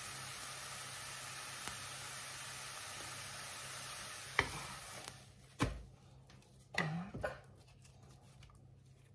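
A thin crepe sizzling steadily in a hot frying pan. The sizzle dies away about five seconds in as the crepe is taken out, with a few sharp knocks in the following seconds.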